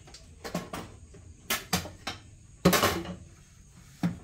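A wooden spatula knocks and scrapes against the inside of a tilted popcorn-machine pot as the popped corn is emptied out. There are a few sharp knocks and a longer clatter about two and a half seconds in.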